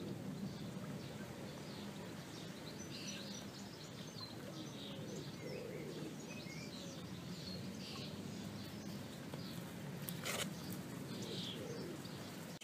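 Garden ambience: small birds chirping now and then over a steady low background hum, with a single sharp click about ten seconds in.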